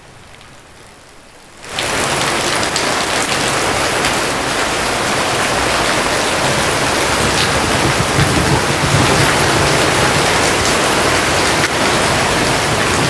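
Heavy rain pouring, a loud steady hiss that cuts in abruptly about two seconds in, after a moment of faint background noise.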